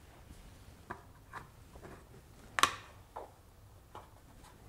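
Hands handling a ball of pizza dough and setting it on a plastic lid on a countertop: faint rubbing with a few light taps, and one sharper click about two and a half seconds in.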